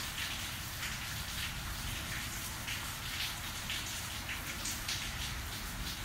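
Rain falling steadily during a thunderstorm, a dense even patter with louder individual drops standing out here and there.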